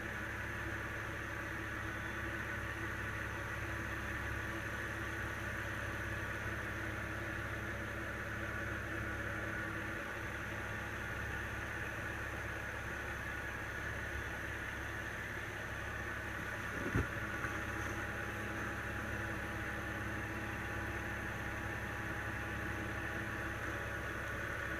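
Volvo XC90 engine idling steadily with a thin, high, steady whistle over the engine hum. The whistle is the vacuum whistle of a failed oil trap (PCV) deflector. There is one short knock about two-thirds of the way through.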